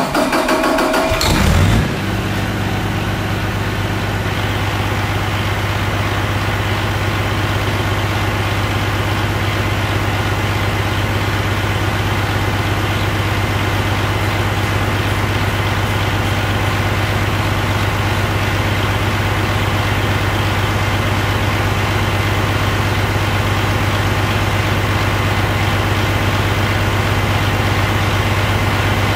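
2013 Detroit DD13 inline-six diesel engine catching and briefly revving as it starts, then settling within about two seconds into a steady idle.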